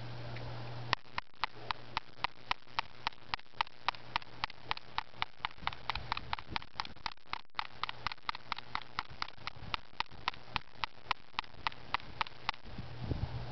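A metal key scraped rapidly back and forth across a Ghost Armor film screen protector on a BlackBerry Curve, making short, sharp scratches at about four a second.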